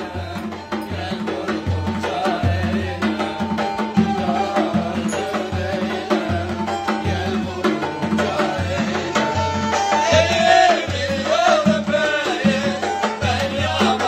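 Turkish folk dance music: a davul drum beating a steady rhythm under a wavering, ornamented melody on a kemane, a bowed folk fiddle.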